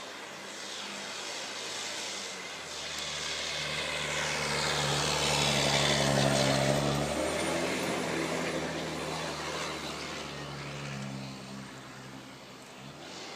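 Snow plow truck's engine working hard as it gains speed for the hill, growing louder to a peak about halfway through, then fading as the truck moves away.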